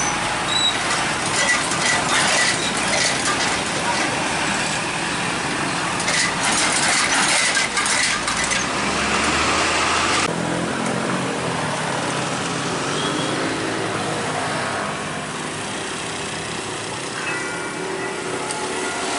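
Road traffic crossing a railway level crossing: truck diesel engines and motorbikes running, with knocks and clatter as wheels roll over the rails. About ten seconds in the sound changes abruptly to a quieter, steadier engine hum.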